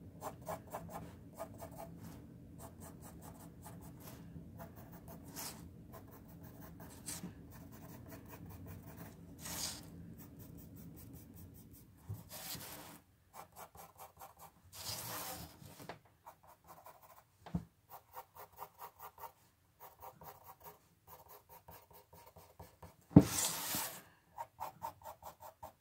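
Pencil scratching on paper in quick, short, repeated strokes as the lines of an eye's iris are shaded in, with a few louder rasps now and then.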